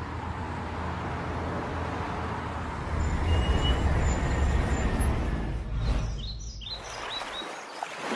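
Steady rush of a small waterfall spilling into a pool, with low rumbling wind on the microphone. A bird chirps a few times about six to seven seconds in.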